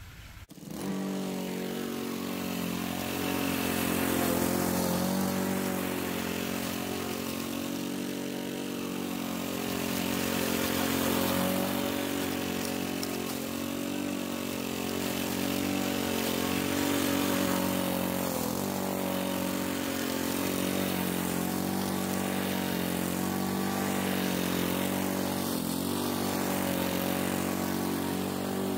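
Petrol walk-behind lawn mower running while cutting tall, overgrown grass, its engine pitch dipping and recovering as it bogs under the load. The engine sound comes in abruptly just after the start.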